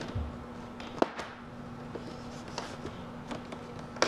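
Light scraping and scattered clicks of a utility knife being worked along the seam of a cardboard box, with one sharper click about a second in, over a steady low hum.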